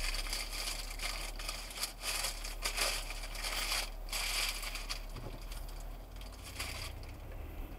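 Irregular crackling over a steady low hum inside a car waiting at a traffic light; about five seconds in the crackle dies down and a low engine drone rises.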